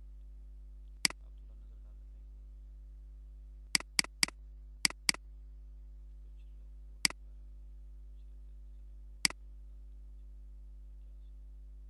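Computer mouse clicking, eight single sharp clicks spread unevenly, with a quick run of five between about four and five seconds in, over a steady low electrical hum.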